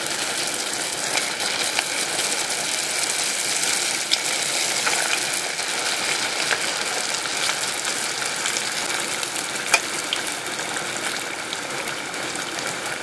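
Samosas in spring roll wrappers deep-frying in a pan of hot oil: a steady sizzle with occasional sharp pops, a couple of them louder about 4 and 10 seconds in.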